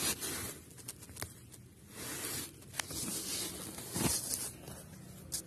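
A Renault Kwid's pleated cabin air filter being worked out of its plastic housing: rustling and scraping of the filter against the plastic, with a few sharp clicks in between.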